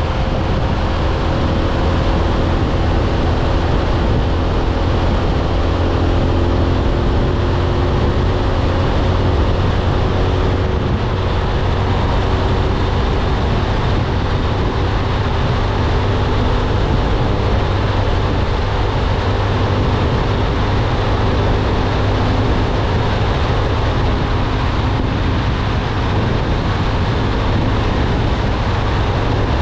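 Motorcycle engine running at a steady cruise, with steady wind and road noise. The engine note sinks slowly over the first ten seconds or so, then holds.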